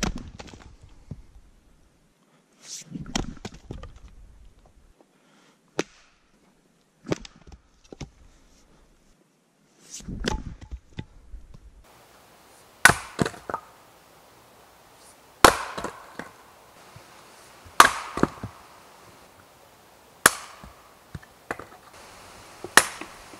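An axe chopping and splitting firewood. First come irregular hatchet strikes on kindling. Then comes a run of five hard blows splitting a log on a chopping block, about one every two and a half seconds, each followed by lighter knocks of wood.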